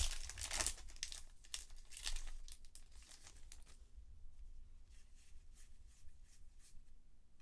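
Baseball card packs being handled: wrappers crinkling and tearing and cards rustling, loudest in the first second and again around two seconds in, then fainter.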